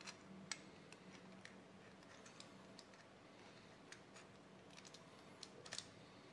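Faint, irregular small clicks of hard plastic and metal parts being handled as a gear is fitted into a 3D-printer extruder housing, over a faint steady hum.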